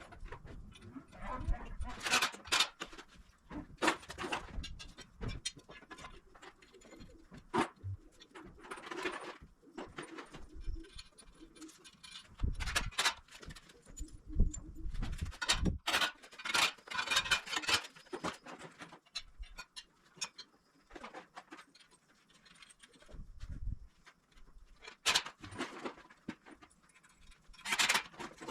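Intermittent metallic clinks, taps and knocks of hand work on a cultivator shank: washers, a lock nut and a bolt being fitted and tightened.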